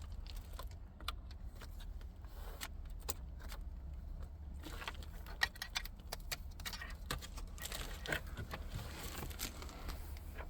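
Wiring harness plugs and cables being handled behind a car dashboard, with small irregular plastic clicks and rattles, over a steady low hum.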